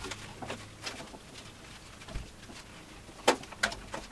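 Gloved hands wrestling a rubber tire onto the upper wheel of a 17-inch bandsaw: scattered taps, rubbing clicks and knocks against the wheel and cabinet, with two sharp knocks a little after three seconds.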